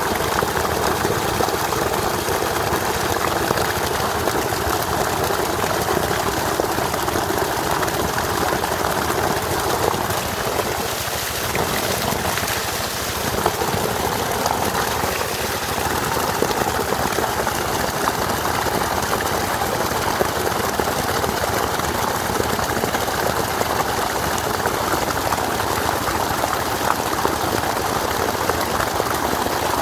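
Steady rush of flowing water, a waterfall or fast stream, with no pauses or changes.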